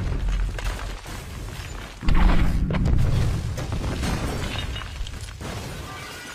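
Film sound of a building being blown up: a deep rumble, then a sudden loud blast about two seconds in, followed by a long rumble slowly dying away.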